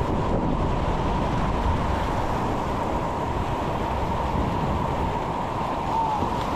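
Steady rushing of whitewater rapids close around the canoe.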